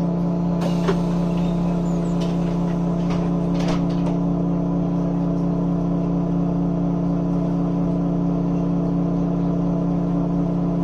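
Inside a BMC Procity city bus: the cabin's ventilation fans give a steady buzzing hum over the low running of its Cummins ISB6.7 diesel. A few light clicks and rattles come in the first few seconds.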